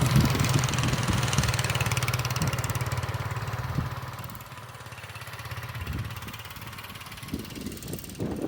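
1961 Arctic Cat Boss Cat snowmobile engine running steadily, loud at first, then fading over about four seconds as the sled moves away, and staying faint.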